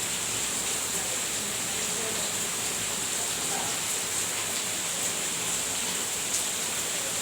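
Heavy rain falling steadily: a constant hiss, with a few faint drop ticks.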